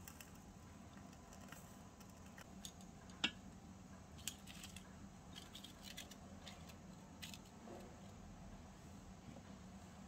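Faint clicks and light taps of hands setting a miniature pan and parchment paper rings in place, with one sharper click a little over three seconds in.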